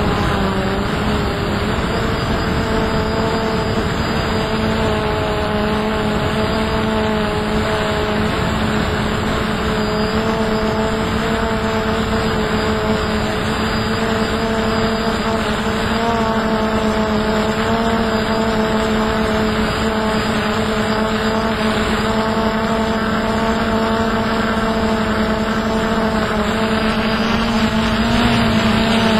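Hubsan X4 Pro quadcopter's motors and propellers running steadily in flight, heard through its onboard camera, with wind rushing over the microphone. Near the end the whine rises in pitch as the motors speed up while the drone banks.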